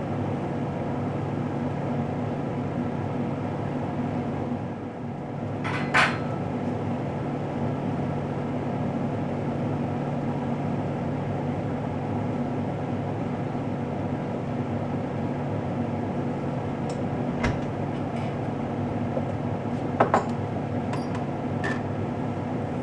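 A few sharp clinks of kitchen utensils or dishes against each other, spread out: one about six seconds in, then a single clink and a close double clink later on. Under them runs a steady low hum.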